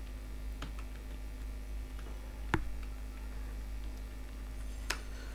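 Scattered clicks of computer keys being pressed, a handful in all, with two louder clicks about two and a half and five seconds in, over a steady low electrical hum.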